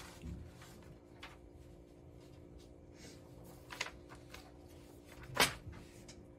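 Sheets of paper being handled and leafed through at a desk: a few brief rustles, the loudest about five seconds in, over a faint steady hum.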